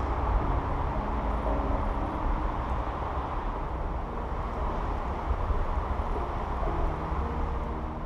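Steady low rumble of outdoor background noise with a faint hum that comes and goes.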